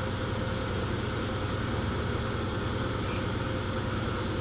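Steady low mechanical hum with a fast, even rattle from the shaking of a plastic tub of sand, the simulated earthquake running on without change.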